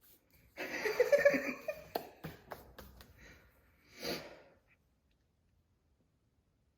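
Breathy laughter about a second in, followed by a short sharp breath about four seconds in.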